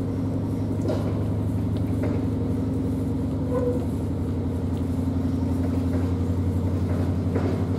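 Narrowboat's inboard diesel engine running steadily at slow cruising speed: a low, even engine note with a fast, regular beat.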